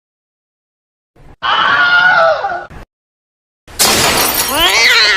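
Two separate sound effects with silence between: first a short noisy clip with a falling tone, about a second and a half in, then a horse whinnying with a wavering, rising cry, starting near four seconds in.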